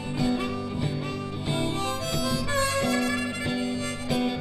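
Live boogie-blues band playing an instrumental stretch, with harmonica over guitar and a steady bass line.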